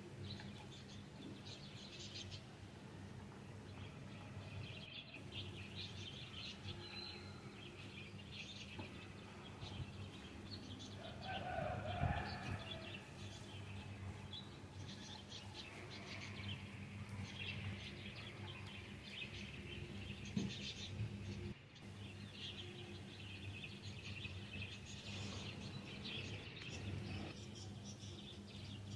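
Faint scraping and sizzling as a silicone spatula stirs chicken mince and chopped vegetables in a nonstick frying pan, over a steady low hum. Birds chirp in the background, with one louder call about midway.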